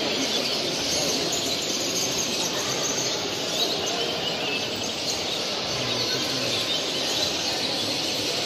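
A dense chorus of many caged finches, greenfinches among them, chirping and trilling at once over the steady hubbub of a large exhibition hall.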